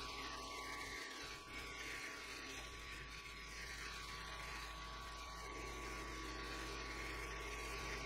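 Benchtop milling machine running, a 12 mm HSS end mill in an R-8 collet cutting metal: a steady motor hum with a constant high whine.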